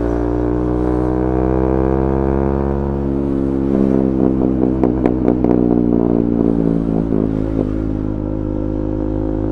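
KTM 390 Duke's single-cylinder engine running through a de-catted Akrapovic exhaust, its note sinking gently over the first few seconds. A cluster of sharp exhaust pops and crackles follows about four to five and a half seconds in, with a few more later, before the engine settles to a steady note.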